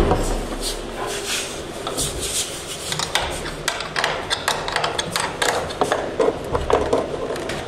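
A steel spanner working a nut on a bolt through a snooker table's wooden underframe, tightening the frame: irregular clicks and scraping of metal on metal and wood. A heavy knock right at the start.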